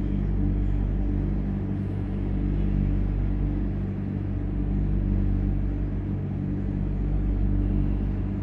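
A steady low mechanical hum, several even tones over a low rumble, unchanging throughout.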